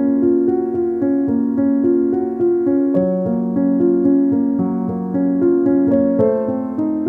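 Background music: a piano-like keyboard playing a steady run of notes with chord changes about every three seconds.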